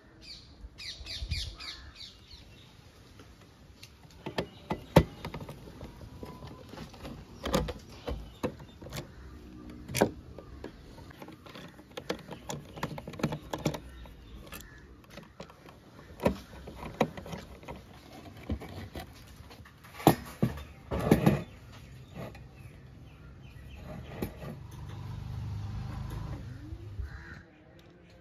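Hand disassembly of an old Mercedes-Benz W123 instrument cluster: a screwdriver working screws and metal gauge parts clinking and knocking on a wooden table, a string of separate sharp knocks. A low rumble swells and fades near the end.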